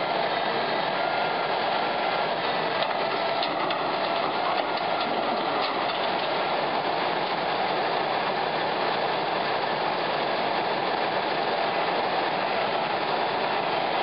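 Heavy wrecker's engine and winch running steadily under load as the winch cable hauls an overturned bucket truck upright, with a few faint clinks a few seconds in.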